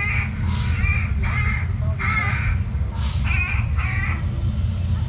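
A run of harsh, cawing bird calls, repeated every half second to a second, over a steady low rumble.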